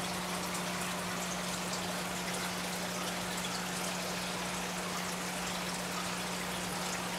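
Aquarium water bubbling: a steady stream of air bubbles from a sponge filter rises and breaks at the surface with many small pops, over a steady low hum.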